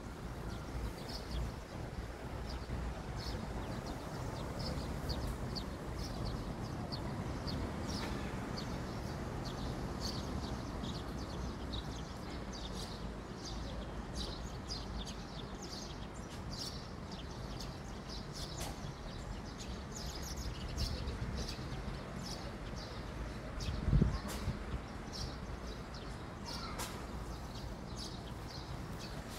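Small birds chirping, short high chirps repeating over and over, over a steady low background rumble. One brief low thump about four-fifths of the way through.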